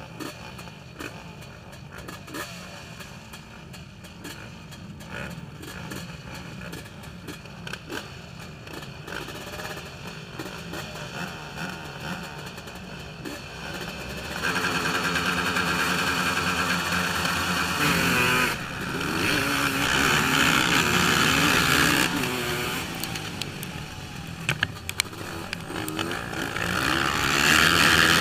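Racing quad (ATV) engines at a motocross start gate, running low and quiet at first. About halfway through they are revved hard, the pitch rising and falling. Near the end they go to full throttle, loudest of all, as the field launches off the line.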